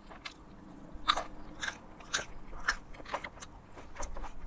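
A person chewing a mouthful of crunchy salad close to the microphone: crisp crunches about twice a second.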